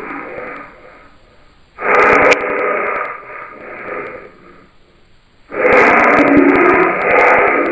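Harsh, wheezy, groaning calls made as a 'land whale' creature sound effect, in long rough bursts: one trails off at the start, one runs from about two seconds in and fades, and another begins near the end.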